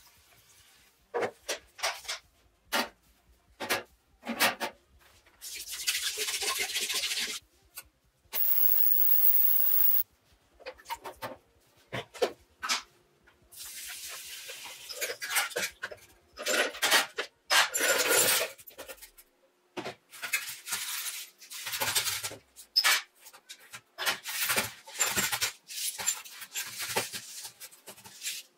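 Handling of small parts and containers: a plastic tub and a wire-mesh basket knocking and clinking against metal trays, with several stretches of liquid pouring, one of them poured through the mesh strainer into an aluminium tray.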